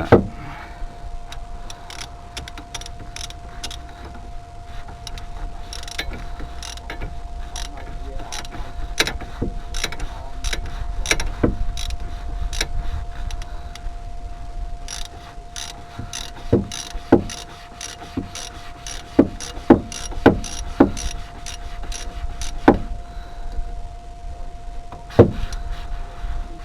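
Socket ratchet clicking in short runs as the rear brake caliper bolts are worked tight, with several sharp metal knocks in the second half.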